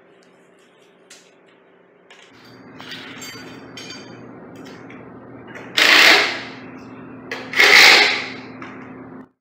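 Cordless drill driving screws to fasten the bracket support assembly to a garage door opener's power head: two short runs about a second and a half apart in the second half. Before them come light clicks and rattles of parts being handled.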